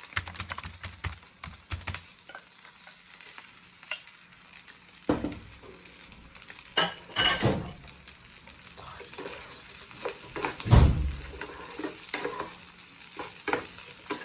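Rice being stir-fried in a pan, sizzling while a spatula stirs and scrapes it. A run of quick clicks in the first two seconds, then several louder knocks and scrapes of the utensil against the pan, the loudest about eleven seconds in.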